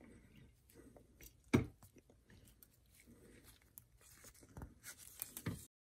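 Faint handling noises of a gloved hand pressing a metal transfer tube with silicone-lubricated O-rings into its bore in a TPI fuel rail: light rubbing and small clicks, one sharp knock about a second and a half in, and a run of clicks and scrapes near the end that cuts off suddenly.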